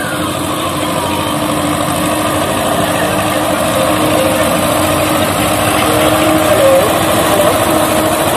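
Escort 335 tractor's diesel engine running steadily as the tractor pulls a land leveler, growing slightly louder as it comes closer.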